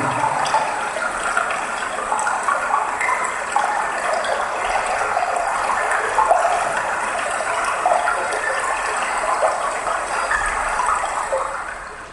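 Recorded sound of rushing, gushing water played as part of a stage performance's soundtrack, steady, then fading out near the end.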